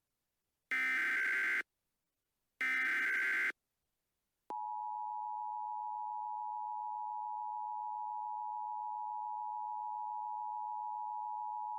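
Emergency Alert System header: two bursts of warbling digital data tones, each about a second long, the last of the three repeats of the alert code. After about a second of silence a steady attention tone near 1 kHz comes on and holds.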